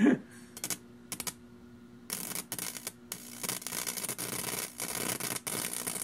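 High-voltage arc from a microwave-oven transformer with a capacitor-and-diode doubler (about 5,000 volts) crackling in rapid irregular snaps over the transformer's steady hum, the snaps scattered at first and dense from about two seconds in. The arc is heating the wire tip red hot.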